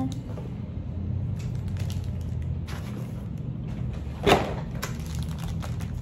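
Plastic wrapping on a boxed mechanical keyboard rustling as it is handled, with one sharp knock about four seconds in as the wrapped keyboard is set down on a wooden desk. A steady low hum runs underneath.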